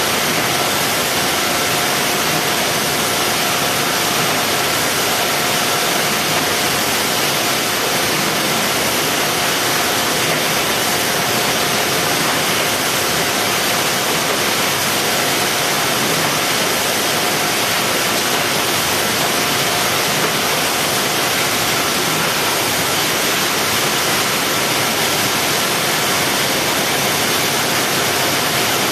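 Steady, even rushing noise of packing-line machinery, with two faint steady whines mixed in.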